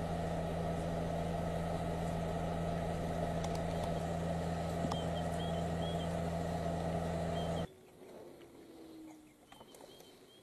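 Idling vehicle engine with a steady, even hum that cuts off suddenly about three-quarters of the way through. Faint, short, high chirps come through around the middle and near the end.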